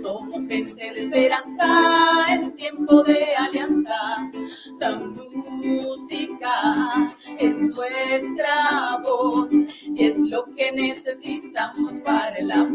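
Two women singing a song together in harmony, accompanied by a steadily strummed string instrument.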